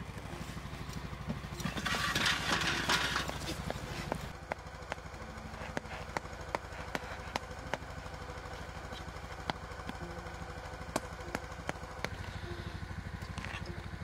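A small motor running steadily: a low hum with a rapid even pulse. Over it, a rustling crunch swells and fades about two to three seconds in, followed by scattered sharp clicks.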